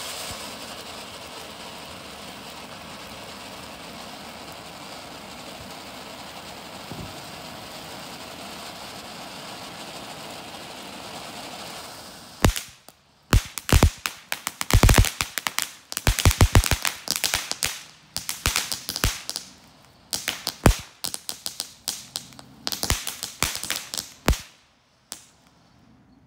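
Ground fountain firework spraying sparks with a steady hiss for about twelve seconds, then breaking into rapid clusters of sharp crackling pops that die away shortly before the end.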